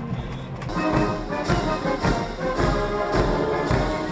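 Military marching band playing a march on brass, with a steady bass-drum beat a little under twice a second.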